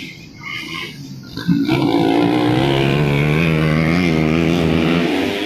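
Dirt bike engine revving loud and held at high revs for about three seconds, its pitch wavering. It starts suddenly about a second and a half in.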